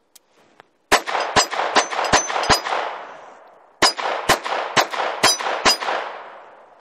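Ruger LCP II .22 LR pistol firing two quick strings of five shots, about two shots a second, each string trailing off in a long echo. Brief high rings after several shots sound like hits on steel targets.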